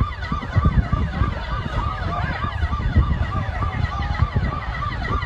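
Emergency vehicle sirens wailing in a fast yelp, about three rising-and-falling cycles a second, with a second siren overlapping, over a steady low rumble.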